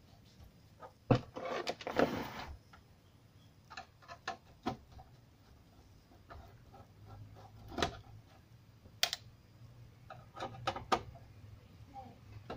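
Scattered light clicks and taps of a screwdriver against the metal rear panel and RCA jacks of a karaoke amplifier, with a short rustle of handling about a second in. A faint low hum sets in about halfway through.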